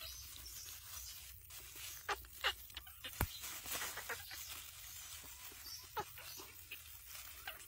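Baby monkey giving several short calls spread through, separated by pauses, with one sharp click a little after three seconds in.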